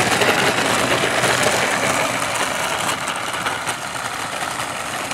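Four battery-electric motors of a scale C-130 Hercules RC model spinning their propellers at low throttle while it taxis on asphalt, a steady whirring hiss that eases off slightly about three seconds in.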